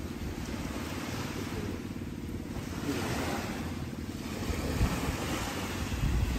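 Small sea waves washing onto a rocky shore, with wind rumbling on the microphone and a few stronger gusts in the second half.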